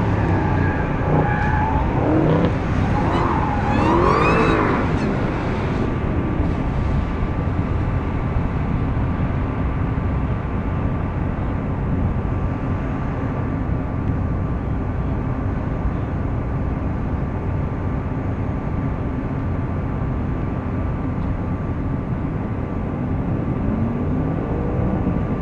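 Car engines revving, rising in pitch a few times in the first five seconds, then a steady low rumble for the rest.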